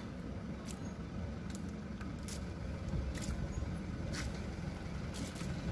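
Water poured from a bucket splashing onto a concrete slab, with a few short ticks, over a steady low rumble.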